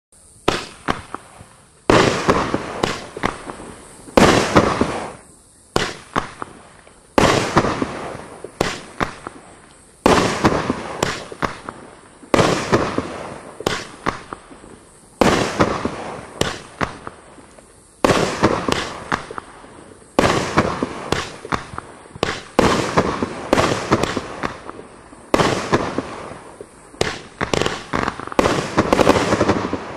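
A 16-shot consumer fireworks cake, Winda's 'Get 'Ur Motor Runnin'', firing shot after shot every one to two and a half seconds. Each shot is a sharp bang followed by a quick fading spray of smaller pops.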